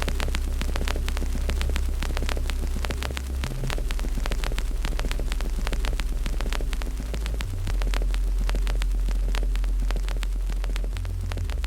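Wood fire crackling with many sharp pops, over a loud deep hum that jumps to a new pitch a few times.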